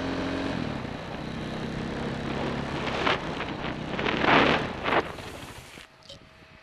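KTM 500 XC single-cylinder four-stroke dirt bike engine running under way, with loud rushing surges of noise a few seconds in. The engine cuts out suddenly near the end as the bike goes down in the tall grass.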